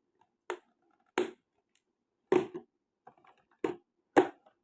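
Small flat items such as stickers and photocards being handled and set down on a hard surface: about six short, sharp taps and clicks spaced irregularly, the loudest near the end.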